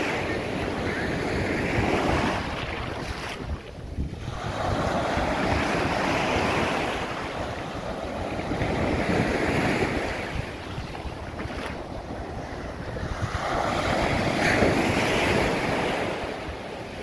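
Small surf breaking and washing up a sandy beach, the foamy rush swelling and fading about every four to five seconds, with wind buffeting the microphone.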